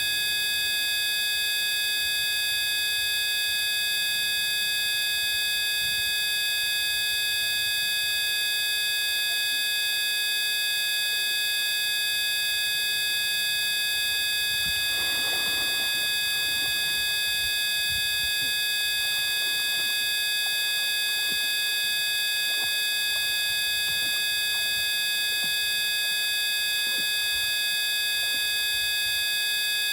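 A steady electronic drone of many pure tones held at fixed pitches, unchanging throughout, with a faint brief rustle about halfway through.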